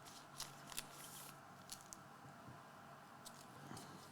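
Near silence, with a few faint soft clicks and rustles of trading cards being handled and slid one behind another.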